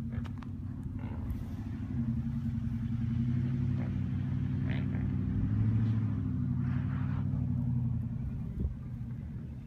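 2006 Nissan Armada's 5.6-litre V8 engine running under load as the SUV climbs a dirt hill trail. It grows louder about two seconds in and eases off near the end.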